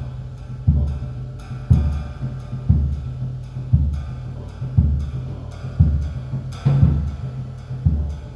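Music with a heavy, low drum beat about once a second over a steady low bass tone.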